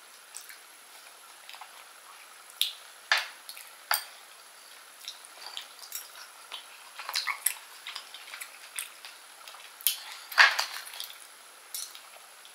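A metal fork scraping and clicking against grilled oyster shells as oysters are scooped out and eaten, in scattered short clacks and scrapes. The loudest clacks come about three seconds in and about ten seconds in.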